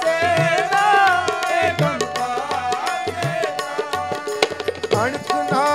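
Sikh kirtan music: harmonium playing a sustained melody over a steady pattern of tabla strokes.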